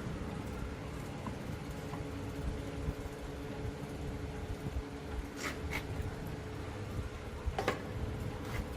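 Steady electric motor hum over a low rumble, with a few sharp clicks in the second half.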